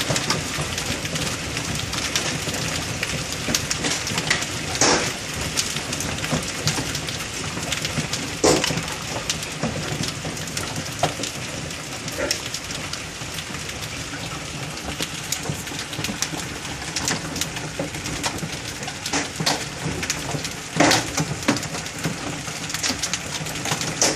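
Hailstorm with rain, heard through a window: a steady rush of falling hail and rain with many sharp knocks of hailstones striking close by, a few of them much louder.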